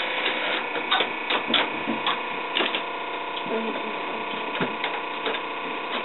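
Cords being plugged into and pulled from jacks and keys being flipped on a Western Electric 555 cord switchboard: a string of irregular sharp clicks and knocks over a steady hum.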